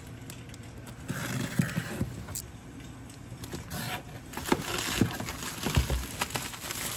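Cardboard shipping box being opened and bubble-wrapped items pulled out: irregular scraping and rustling of cardboard and plastic wrap, with a few soft knocks about two thirds of the way through.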